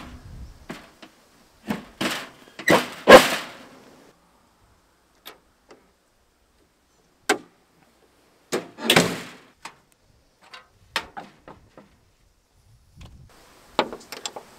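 Metal clanks and knocks as a Unimog's front grille panel and bonnet are closed, loudest about three seconds in, with the bonnet dropping shut about nine seconds in. Small clicks near the end as the bonnet latches are checked.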